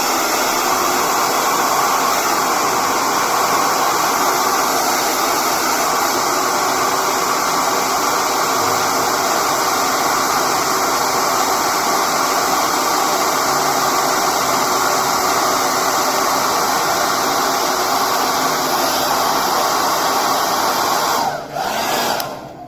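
Hair dryer blowing steadily, heating the phone's back panel to soften the adhesive holding the fingerprint sensor. It cuts off near the end.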